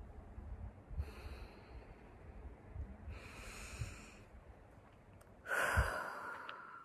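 A woman breathing deeply: three slow breaths, the last one louder, with a low rumble underneath.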